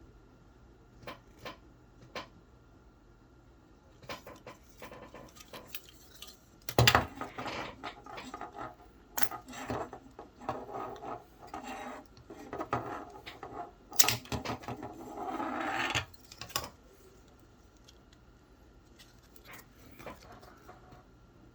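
Parts of a disassembled cellular phone being handled on a work surface: a few light clicks, then about twelve seconds of clattering and rubbing of small hard pieces, with two sharp knocks, the loudest about seven seconds in.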